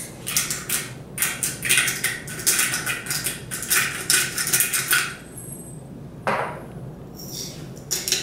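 Salt and pepper being ground into the blender jar: a hand grinder twisted in a run of short crunchy bursts, about two a second, then a few more scattered twists near the end.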